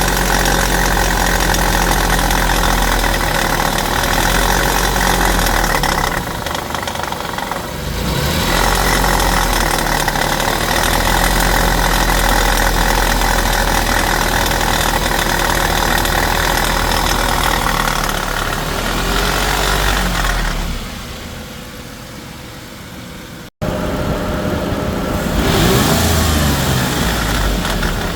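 Dodge Intrepid's 2.7 L V6 engine running, blipped up in revs several times. About two-thirds of the way through it goes quieter and breaks off for an instant, then runs loud again.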